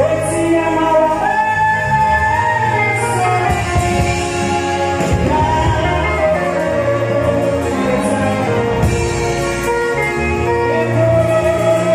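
Gospel music: voices singing a held, flowing melody over instrumental accompaniment with a steady bass line.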